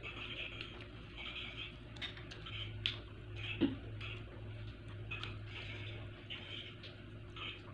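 A person chewing food with open, wet mouth sounds close to the microphone, in a steady rhythm about once or twice a second, with a few sharp clicks, the loudest a little past the middle. A steady low hum runs underneath.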